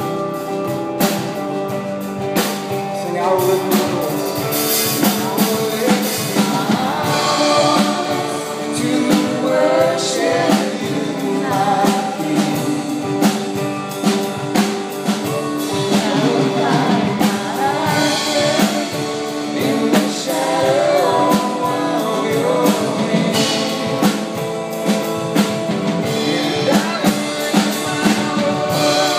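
A live worship band playing: a woman singing lead into a handheld microphone over electric guitar and a drum kit keeping a steady beat.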